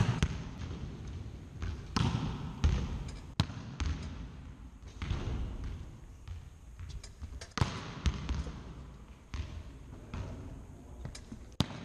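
Volleyballs being hit and bouncing on a sports hall floor: a string of sharp smacks at uneven intervals, each ringing on in the echoing hall.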